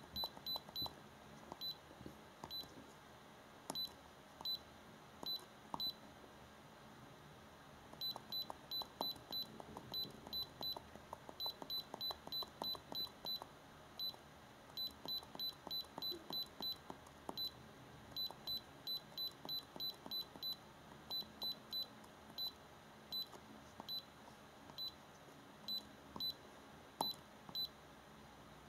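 Handheld iCarsoft i930 diagnostic scan tool beeping at each key press while its buttons are worked to scroll through menus: short high beeps, some single and many in quick runs of several a second.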